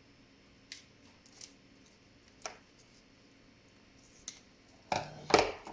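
Kitchen scissors cutting through a lobster's shell: a few short, sharp snips, then a louder, longer cut near the end.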